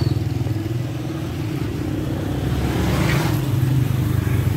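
A motor vehicle's engine running close by, a steady low drone that swells briefly about three seconds in.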